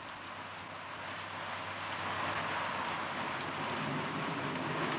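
Steady heavy rain of a storm, a continuous hiss that grows a little louder over the first couple of seconds.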